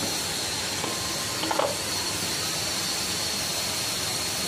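Tomato-onion masala sizzling in a kadai, an even steady hiss as the glass lid is lifted off the pan. There is a brief short sound about a second and a half in.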